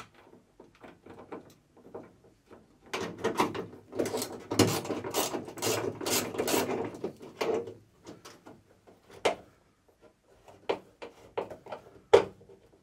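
Metal clicks and rattles of a Triumph TR7 boot-lid lock latch mechanism being handled and fitted against the steel boot lid, with a few seconds of dense rattling in the middle and single sharp clicks toward the end.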